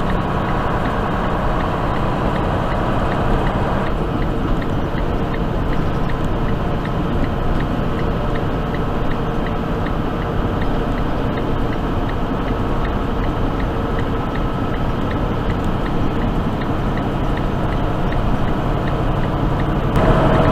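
Tractor-trailer truck running steadily at highway speed, engine drone and tyre noise on a snow-covered road heard from inside the cab, with a faint light ticking.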